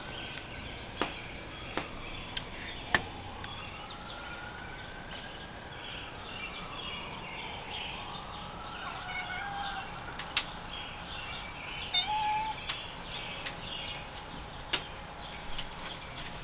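A house cat meowing faintly, with long drawn-out calls that rise and fall in pitch and a couple of short meows, over light bird chirping. A few sharp clicks stand out above them.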